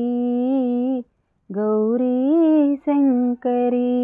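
A woman singing a devotional lullaby alone and unaccompanied, in long held notes. It is a cradle song sung to lull the deities to sleep. The singing breaks off for about half a second about a second in, then goes on.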